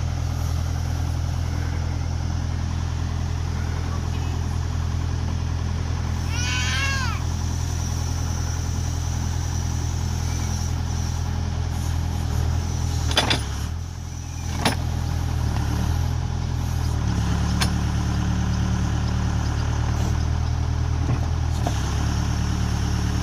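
Case 580 Super K backhoe's four-cylinder diesel engine running steadily while the hoe is worked. A little past the middle the engine briefly dips, there are two sharp knocks, and the note then settles slightly higher for the rest.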